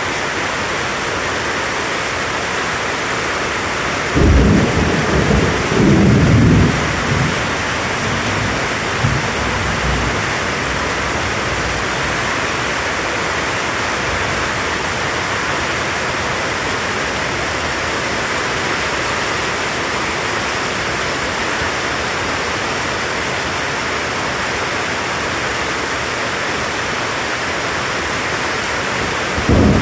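Tropical rainstorm: a steady hiss of heavy rain. About four seconds in, a sudden clap of thunder rumbles on for roughly three seconds, and another thunderclap breaks just at the end.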